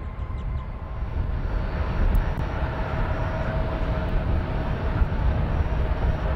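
Jet airliner engines running: a low rumble with a steady tone above it, growing a little louder about two seconds in.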